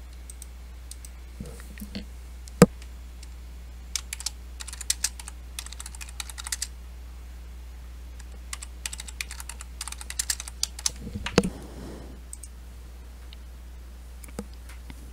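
Typing on a computer keyboard in two bursts of quick keystrokes, with a single sharp click a couple of seconds in, over a steady low hum.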